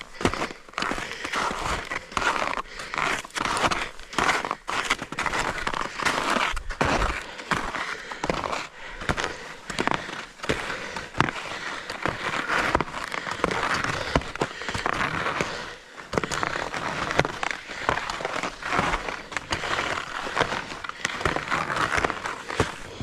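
Skis sliding and scraping over snow, a continuous hiss broken by irregular crunches and edge scrapes, stopping just after the end.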